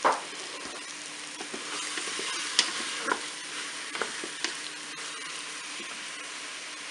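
White sausages and apple pieces sizzling in butter in a Cookeo multicooker's pot on its browning setting. A wooden spatula stirs them, with a few sharp knocks against the pot.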